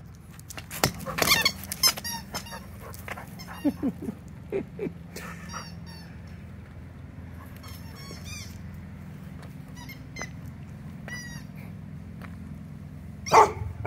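Rubber squeaky pig toy giving short high squeaks every second or so, and a dog barking once near the end.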